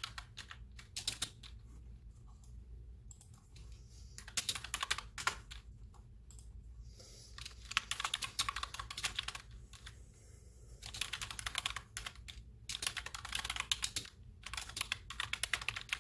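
Typing on a clicky office computer keyboard: runs of rapid keystrokes, each a second or two long, broken by short pauses.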